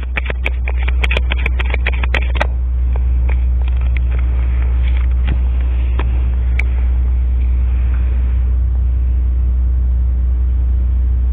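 A steady low rumble runs throughout, with a quick run of sharp clicks and taps in the first two and a half seconds and a few scattered clicks after.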